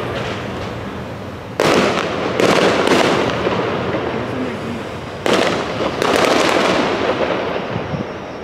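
Fireworks exploding out of sight, heard from inside a moving car: about five sharp bangs that sound like gunshots, each trailing off in a long echoing rumble.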